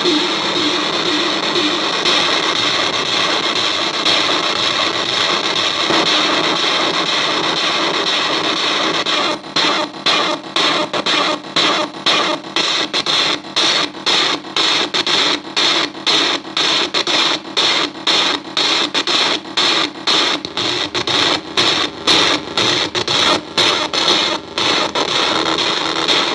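Harsh glitchy digital noise from a circuit-bent Korg DDD-1 drum machine patched through a homemade logic-level effect unit. It runs as a steady wash at first, then about nine seconds in it starts stuttering, cut by short dropouts about two to three times a second.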